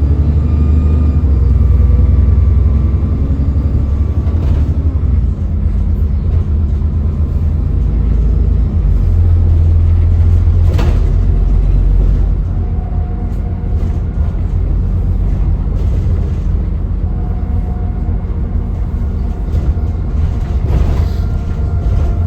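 ADL Enviro 400 (E40D) double-decker bus engine running under way: a steady low rumble with a faint turbo whine above it. There is a sharp knock about halfway through.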